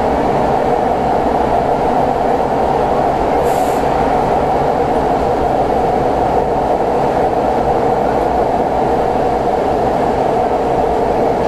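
Athens metro train (Line 1) running, a loud steady noise of wheels and motors heard from inside the carriage, with a brief faint hiss about three and a half seconds in.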